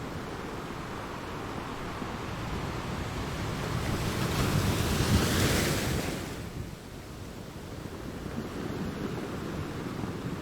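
Ocean surf: waves breaking and washing on the shore. One wave swells up and crashes about five seconds in, then the wash drops away, leaving a steady lower rush.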